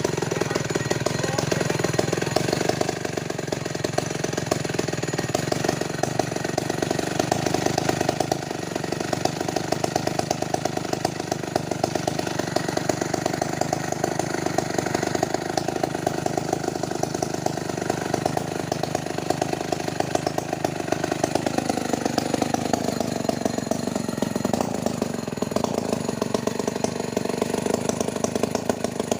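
Petrol engine running steadily with a fast, even pulse; about three-quarters of the way through its pitch drops and it settles lower.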